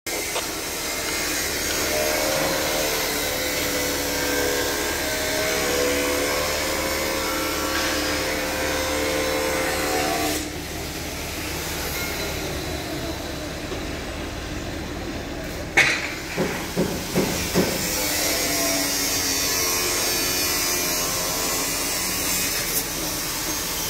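Construction-site machinery noise: a steady hiss with a wavering whine for the first ten seconds, changing and dropping a little after that. About two-thirds of the way through comes a quick run of about five sharp knocks.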